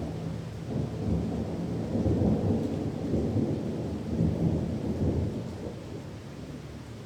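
A long roll of thunder over steady rain. The low rumble builds about a second in, swells in several surges and fades away near the end.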